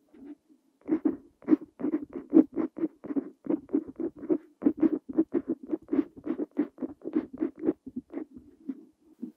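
Parker Jotter fountain pen's steel nib scratching on paper as Korean is handwritten, a quick run of short strokes at about three to four a second. The writing starts about a second in and stops near the end.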